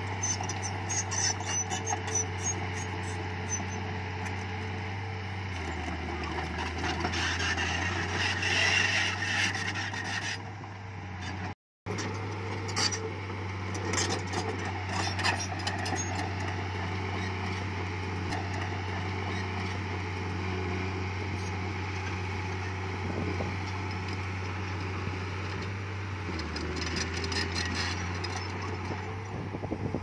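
Diesel engine of heavy earthmoving equipment running steadily, with scattered metallic clanks and knocks. The engine note dips lower twice for a couple of seconds, and the sound cuts out for an instant about twelve seconds in.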